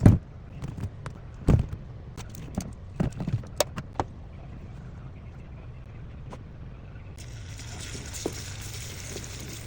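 Cooking sounds from a pot on the stove: a few sharp knocks of utensils against the pot over a low steady rumble, with a hiss rising near the end.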